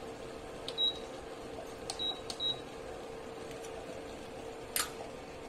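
A steady low hum with a handful of faint clicks. Several of the clicks carry a brief high ring, like light ticks on metal, and a sharper click comes near the end.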